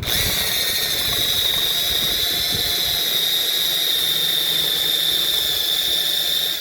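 Power drill running at steady speed with a high, even whine, driving a 5 mm wood drill bit into a block of wood. It starts suddenly and cuts out near the end.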